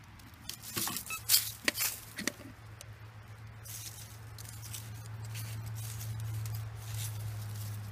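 Dry leaves crackling and sharp handling knocks as the metal detector is moved through leaf litter in the first two and a half seconds, then a steady low hum that slowly grows louder.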